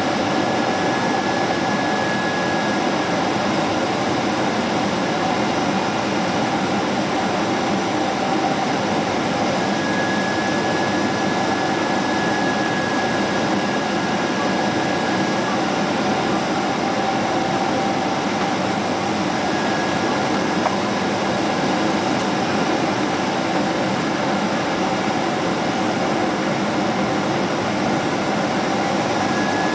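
Steady cabin noise inside a Boeing 777 airliner: an even rush of airflow and engine noise with faint steady whining tones, holding level throughout.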